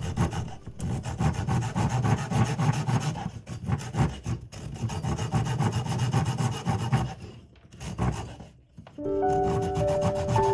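Saw cutting through wood in rapid, rasping back-and-forth strokes that stop about seven seconds in, with one short burst after. Soft music notes come in for the last second or two.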